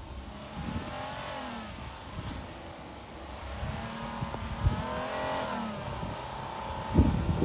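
Off-road vehicle's engine revving up and down as it climbs and crawls over a rough snowy trail, with a few short low thumps, the loudest near the end.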